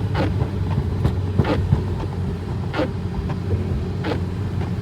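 Cabin sound of a BMW G20 330i driving in snow: its turbocharged four-cylinder engine runs with a steady drone under road noise. A soft swish from the windshield wipers comes about every second and a half.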